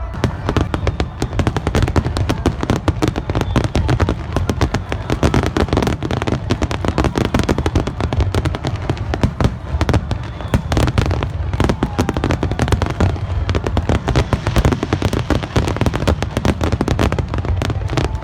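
Aerial fireworks going off in a dense, continuous barrage: rapid overlapping bangs and crackles over a deep, rolling boom.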